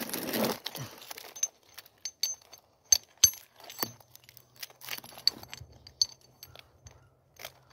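Light metallic clinking and jangling with scattered sharp clicks and two hard knocks near the middle. A low steady hum comes in about four seconds in.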